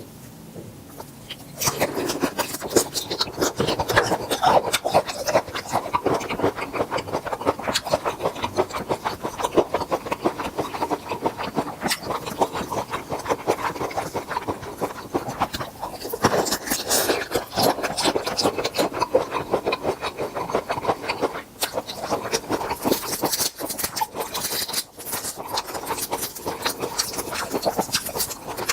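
Dense, close-miked crackling and rubbing of grilled tiger prawns being handled and eaten, shells crackling. It starts about a second and a half in.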